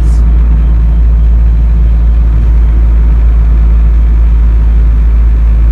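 Steady low drone of a Honda Civic's supercharged D16Y8 SOHC engine, heard inside the cabin with road noise. The car is cruising at highway speed on light throttle while a freshly installed SpeedFactory Street Savage camshaft beds in.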